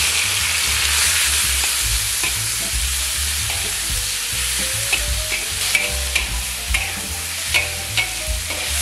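Ingredients tipped into hot oil sizzling loudly and steadily in a frying pan while being stir-fried, with a spatula knocking against the pan several times in the second half.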